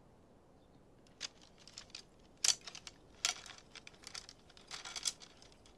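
Bamboo-slip scroll being unrolled and handled: an irregular run of light clicks and rustles as the slips knock against each other.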